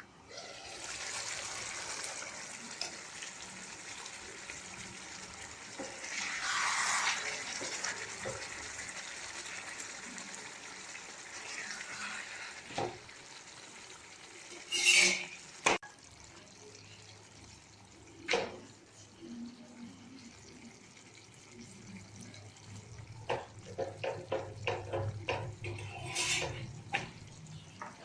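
Chicken curry sizzling in a hot pan with a steady hiss, then a metal spoon stirring and scraping in the pot, with a run of quick clinks near the end.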